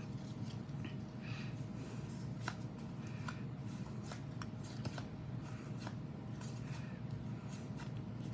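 Pokémon trading cards being handled and flipped through, with light clicks and rustles as the cards slide past each other, over a steady low hum.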